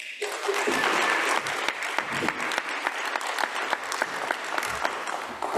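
Audience applauding, many hands clapping at once; it starts abruptly and swells within the first second, then holds steady.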